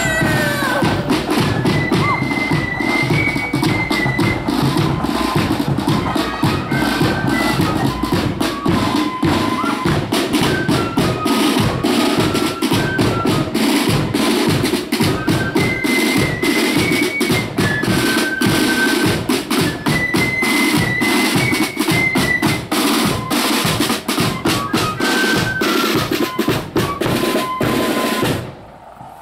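Marching flute band playing a tune on flutes over rapid snare drum rolls and a steady bass drum beat. The playing stops near the end.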